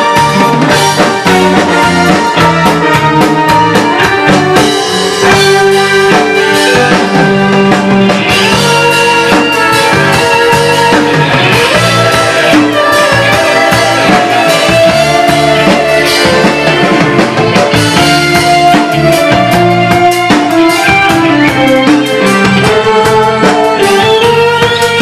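Live band playing an instrumental passage: drum kit, electric bass and guitar, and keyboard, with a pitched lead melody over a steady beat.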